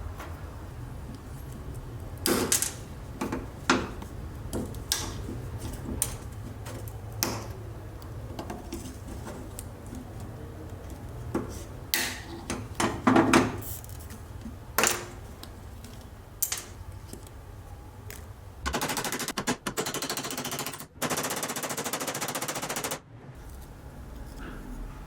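Workshop handling sounds: scattered sharp knocks and clicks of metal and tools. Near the end, a small power tool rattles rapidly for about four seconds in two runs with a brief break.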